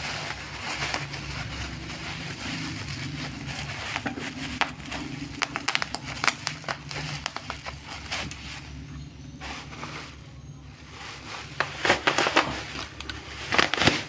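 Black plastic bubble wrap and tape being torn and pulled off a fishing-rod parcel: continuous crinkling and crackling, with sharper, louder crackles in the middle and near the end.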